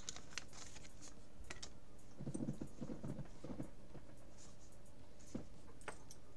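Faint clicks and rustles of trading cards and plastic binder sleeves being handled, with a short spell of soft, low rubbing about two seconds in.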